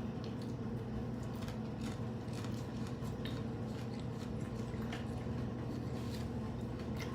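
Crunchy hard-shell tacos being bitten and chewed: scattered short crunches and clicks over a steady low hum.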